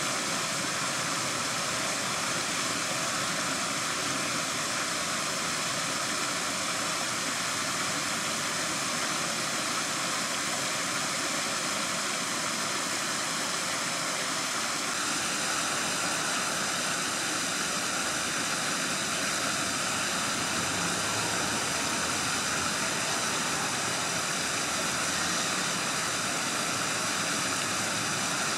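Steady rush of running stream water, with a slight change in its tone about halfway through.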